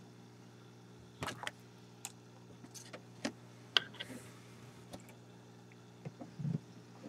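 A faint, steady low hum with light clicks and taps scattered irregularly over it, the sharpest a little before the middle and a few more close together near the end.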